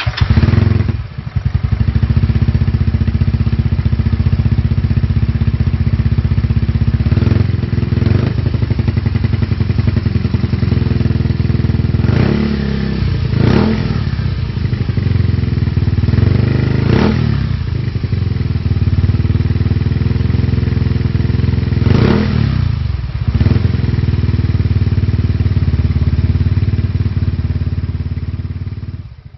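Yamaha Mio i 125 scooter's single-cylinder four-stroke engine idling through a JVT V3 adjustable aftermarket exhaust. The throttle is blipped about seven times, each rev rising quickly and falling back to idle.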